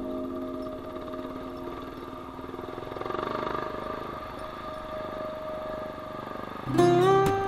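Single-cylinder dual-sport motorcycle engine running, swelling a little louder about three seconds in. Background music fades out at the start and a new passage comes in loudly near the end.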